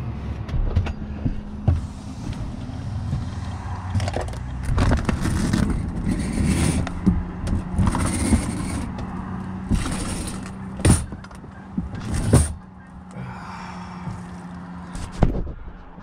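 Bumps, knocks and rustling of gear being handled as a truck's camper top is opened up, over a steady low hum that fades out near the end; a few sharp knocks stand out in the second half.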